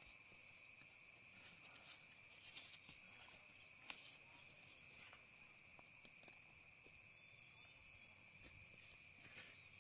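Faint insect chorus: a steady high buzzing with a short pulsed chirp repeating about every second and a half. There are a few light clicks, the sharpest about four seconds in.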